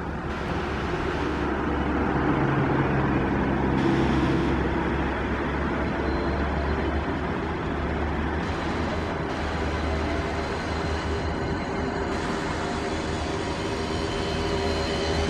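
Ford Transit ambulance on an emergency run, its siren sounding steadily as it drives past, over the noise of engine and traffic.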